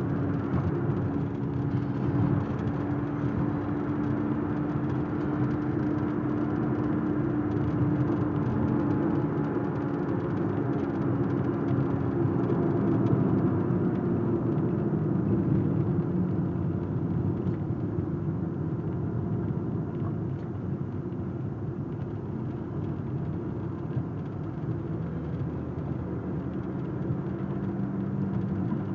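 Car interior while driving: a steady rumble of engine and tyre noise, with a hum that slides down in pitch about halfway through.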